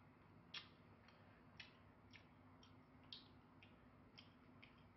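Faint, sharp clicks of a metal fork and spoon tapping and scraping on a plate as a steamed fish is picked apart, about two a second at uneven intervals.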